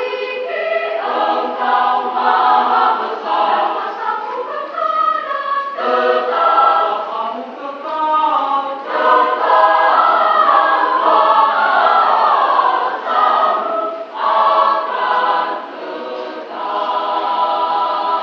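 Mixed choir of women's and men's voices singing a church hymn in parts, in sustained phrases with short breaks between them.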